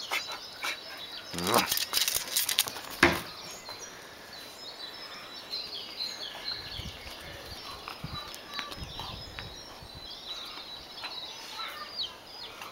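Small birds chirping and twittering, many short high chirps throughout. About a second and a half in there is a brief louder sound rising in pitch, and a sharp knock about three seconds in.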